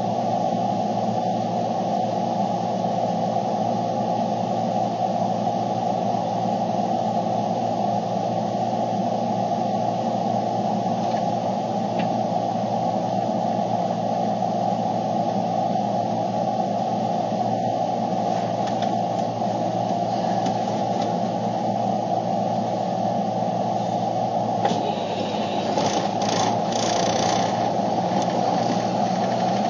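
Steady droning hum and hiss inside a vehicle's cabin. Near the end, a few rustles and clicks from something brushing against the phone.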